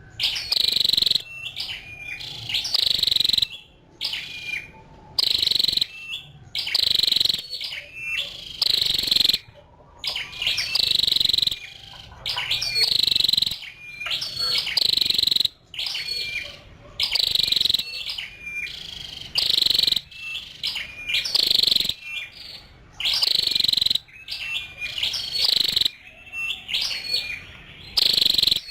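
A female flowerpecker, the bird known in Vietnamese as chim sâu đầu đỏ, calling. Short high-pitched calls repeat about once every second, without a break.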